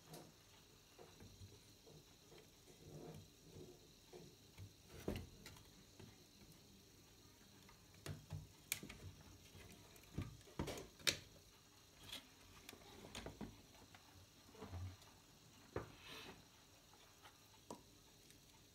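Faint, scattered clicks and knocks of a CRT television's circuit board and its wires being handled and turned over on a wooden workbench, the sharpest click about eleven seconds in.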